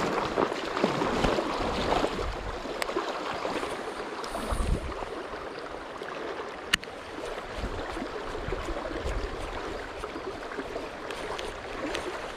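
Rushing river current, a steady wash of water noise that is louder in the first couple of seconds. One sharp click about halfway through.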